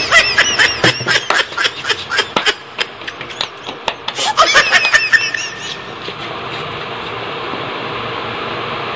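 High-pitched laughter in two quick bursts, with sharp clicks mixed in, giving way about five seconds in to a steady hiss of background noise.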